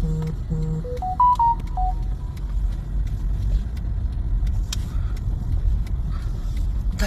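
Steady low rumble of a car's engine and tyres heard from inside the cabin while driving. In the first two seconds there is a short run of electronic beeping tones: two low beeps, then a few higher notes stepping up and down.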